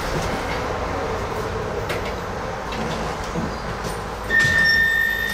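Docklands Light Railway train rumbling as it draws into the station. About four seconds in, a steady high electronic tone starts and holds.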